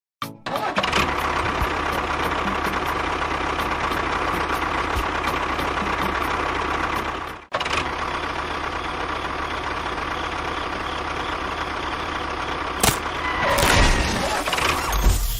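A small motor running steadily, stopping abruptly about halfway through and starting again at once, with a single sharp knock near the end.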